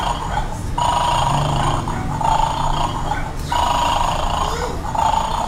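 Electronic snoring sound effect from a battery-operated toy bulldog in a 'bad dog' tabletop game, repeating in long snores with short breaks, while it is still asleep and has not yet barked.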